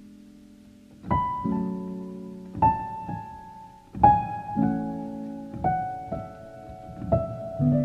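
Slow solo piano music: a fading chord gives way after about a second to single notes and chords struck about every half second to a second, each left to ring and die away.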